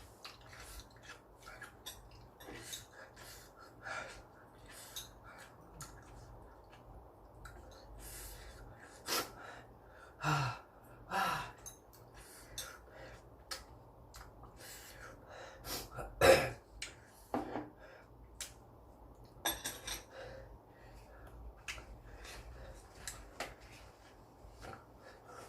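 A person eating very spicy ramen: scattered light clicks of utensils against a dish, with sniffs and sharp breaths from the heat. The loudest breaths come about ten, eleven and sixteen seconds in.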